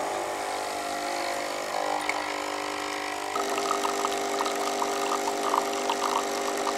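Magimix Nespresso capsule coffee machine brewing: its pump buzzes steadily, then about three seconds in grows louder and fuller, with rapid crackling as the coffee pours into the mug.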